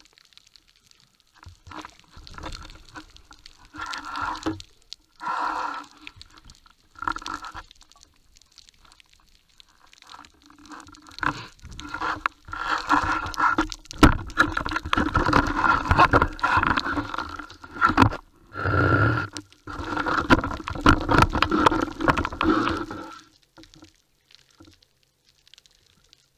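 Underwater handling noise of the camera and speargun: rubbing, scraping and knocking against them as the diver moves down onto the rocky bottom. It comes in short bursts at first, then becomes a long, loud stretch full of clicks and knocks in the second half, before dying away near the end.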